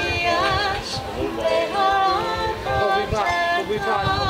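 A woman singing held notes with vibrato, with a small harp played as accompaniment.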